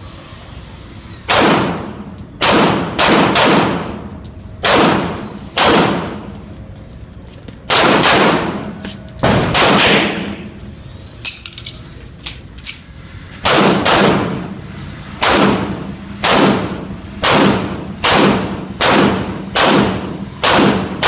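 Beretta M9 9 mm pistol firing about twenty rapid shots in quick strings, each with a short echo, with a pause of about three seconds midway.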